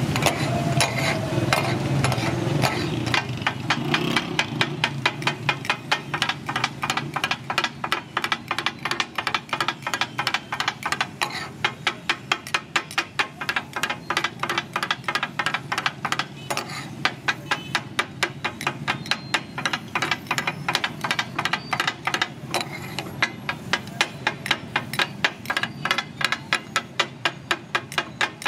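Two flat metal spatulas striking a large iron griddle over and over in a fast, steady rhythm, about three strikes a second, as the cook chops and mixes tomatoes. This is the clatter that gives katakat its name.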